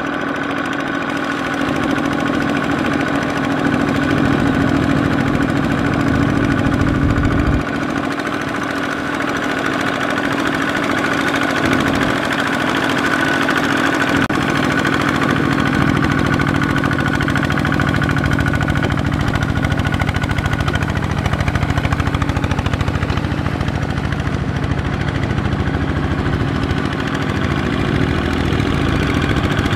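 Single-cylinder Kubota ZT155 diesel engine of a two-wheel walking tractor running steadily, with a rapid even beat. Its tone shifts abruptly about eight seconds in and again around twelve seconds.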